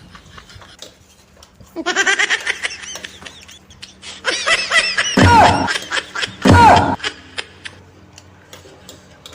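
Someone laughing in two bouts: a short one about two seconds in, then a louder, longer one from about four to seven seconds with two sharp peaks. Faint scattered clicks come in between.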